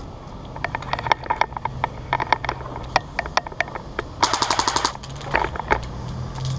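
Airsoft guns firing rapid strings of shots, with one dense full-auto burst lasting under a second about four seconds in.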